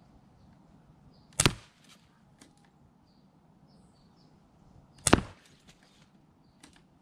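Two shots from a CO2 pellet pistol, about three and a half seconds apart, each a sharp crack followed by a few faint ticks. Faint bird chirps sound in the background.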